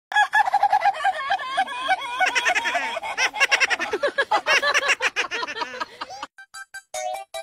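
A high-pitched voice making quick sounds that bend in pitch, with no clear words, breaking into short choppy bits near the end.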